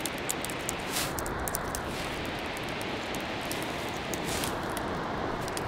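Steady rush of surf breaking along an open beach, with wind on the microphone and a fine crackle of high ticks; the hiss swells briefly about a second in and again about four seconds in.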